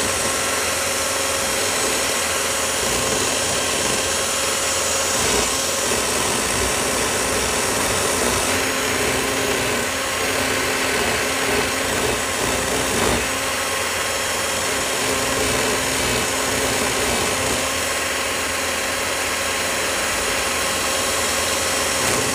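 Cordless drill running steadily, spinning a rubber-fingered quail plucker attachment while a scalded quail is held against it to strip its feathers.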